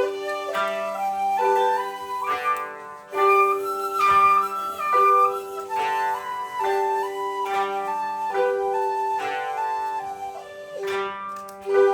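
Koto ensemble with shakuhachi playing: plucked koto notes under a breathy bamboo-flute melody that climbs to its highest held notes a few seconds in and then steps back down.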